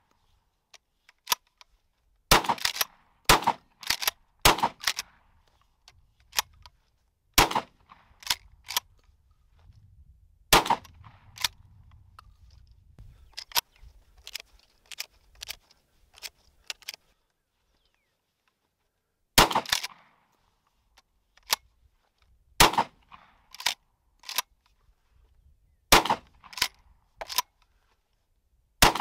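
Rock Island All Gen 12-gauge pump-action shotgun fired about eight times, each shot followed by the clack-clack of the pump being racked. In the middle there is a run of softer clicks as shells are pushed into the magazine tube.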